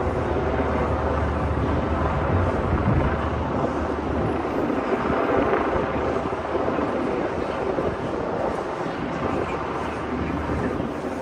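Busy city street noise: a steady wash of traffic, with a vehicle engine rumbling by in the first few seconds.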